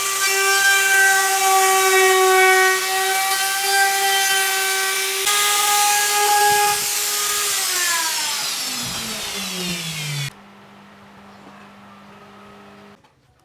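An electric power tool's motor running at a steady whine, then winding down in pitch as it coasts after being switched off. The sound stops abruptly about ten seconds in, leaving a fainter low hum that ends near the close.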